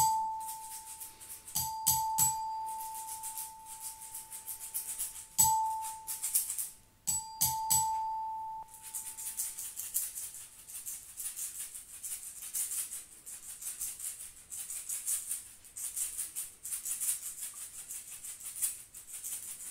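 A shaker rattling in a slow, even rhythm, with a bell-like metal instrument struck several times in the first eight seconds. Each stroke rings on the same single clear tone and dies away, and the ringing fades out by about ten seconds in, leaving the shaker alone.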